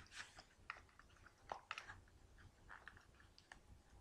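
Faint scattered clicks and rustles of an inside-the-waistband leather-and-Kydex holster and denim as its clip is worked down over the jeans waistband.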